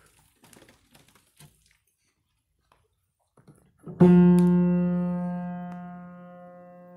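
One low note struck on an old Hobart M. Cable upright piano about four seconds in, ringing out and slowly fading. Before it, a few faint knocks from handling the instrument.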